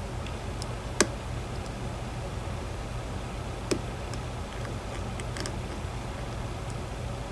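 A few sharp, small clicks from a lock pick working the pins of a DOM IX 10 dimple lock, the loudest about a second in and another near the middle, over a steady low background hum.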